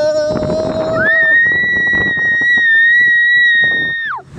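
Voices whooping on the ride down a slide: a lower held whoop fades about a second in, then a high, steady squeal rises in, holds for about three seconds and drops away near the end. A rushing noise from the sliding runs underneath.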